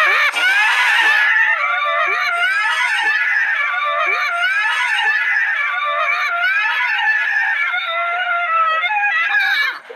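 High-pitched wailing voice with a pitch that wavers up and down constantly, loud and unbroken, dropping away just before the end.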